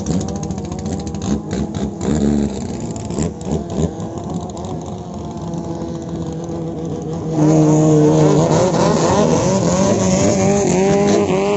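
Thai longtail racing boat engines running at high revs as the boats speed past. First one boat moves off and gets quieter. About seven seconds in, a closer boat's engine comes in louder at steady high revs, its pitch rising slightly near the end.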